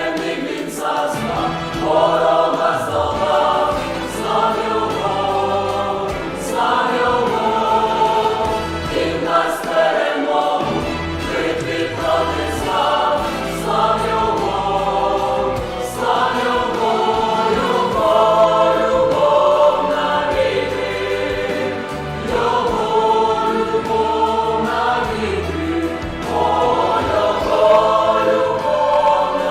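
Youth choir singing a church hymn, in sung phrases of a couple of seconds each over steady low bass notes.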